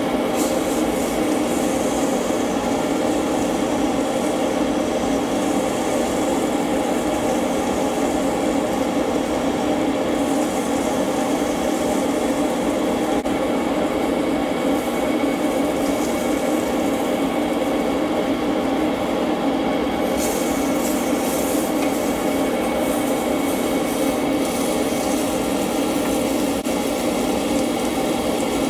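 Beefsteak frying in butter in a frying pan, over a loud, steady hum; from about twenty seconds in, a rougher crackle and the scraping of a spatula in the pan join it.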